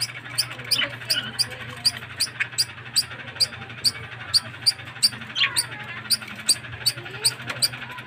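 Budgerigars chirping and chattering, with short calls scattered through. A steady high ticking rhythm, about three beats a second, runs underneath.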